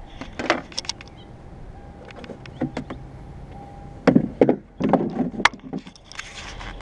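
Car hood being raised and propped open: a series of metal clunks and rattles from the hood and its prop rod, the loudest cluster a little past the middle.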